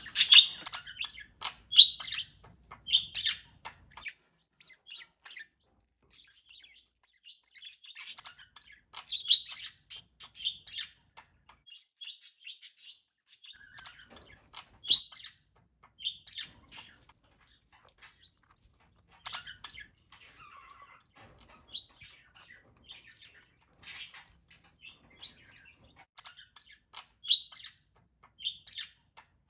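Pet parakeet chirping in short, scattered bursts with pauses between, the loudest in the first couple of seconds.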